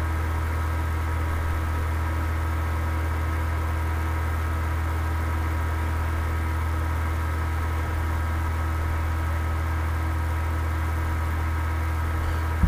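Steady low hum with several constant higher tones above it, unchanging throughout. It is the background hum of the recording setup.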